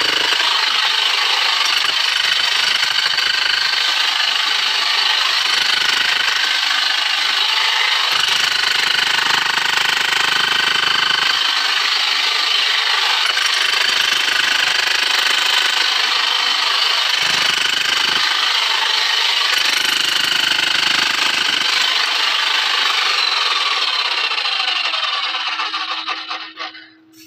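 Corded electric hand-held rotary/demolition hammer running steadily into rock, a dense rattling noise with a high motor whine. Near the end it is switched off and the motor winds down, its pitch falling as the noise dies away.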